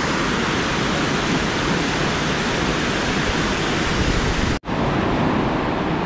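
Steady, loud rush of a waterfall's water pouring over a rock lip and crashing into the gorge below. It cuts out for an instant about three-quarters of the way through, then resumes.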